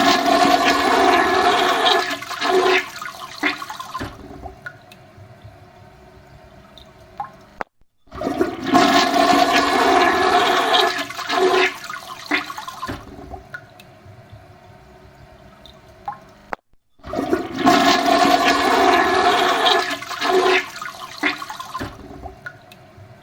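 Toilet flushing three times in a row. Each flush is a loud rush of water lasting about four seconds that tails off into quieter running water, followed by a brief silence. The rushes start at the very beginning, about eight seconds in, and about seventeen seconds in.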